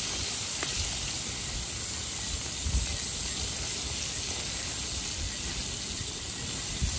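Floured fish frying in a pot of hot oil, a steady sizzle with a low rumble underneath.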